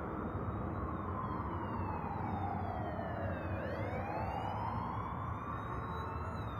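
Police siren in wail mode: one slow fall in pitch over about three and a half seconds, then a slow rise again, over a steady background hiss.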